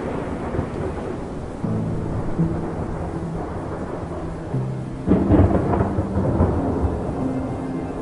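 Thunder rumbling through a rainstorm, with a louder peal about five seconds in. Soft sustained music notes play underneath.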